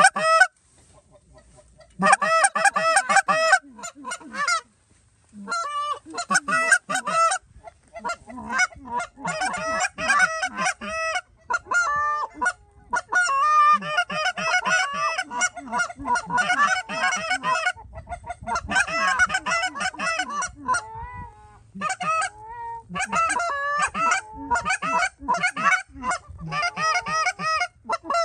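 Canada goose honks and clucks, many short calls in quick succession that start about two seconds in and go on with brief pauses.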